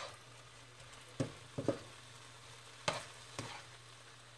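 Ground beef with onion, garlic and star anise frying in a pan, with a faint sizzle. A utensil is stirred through it, knocking and scraping on the pan four or five times.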